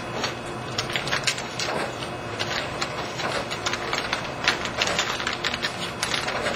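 Plastic vacuum-bagging film crinkling and crackling in quick, irregular clicks as fingers press it down onto sticky bag sealant tape.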